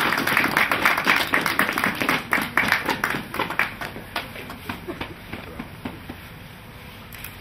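Applause from a small group of people, thinning out and dying away over about five seconds.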